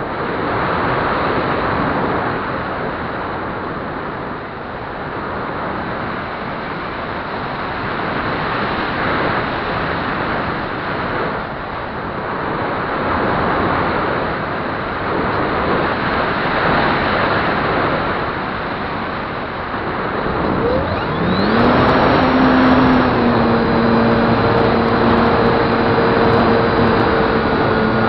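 Air rushing over an onboard camera on a Flyzone Calypso RC plane in flight. About three-quarters of the way through, the plane's electric motor spools up with a quick rising whine and then holds a steady hum.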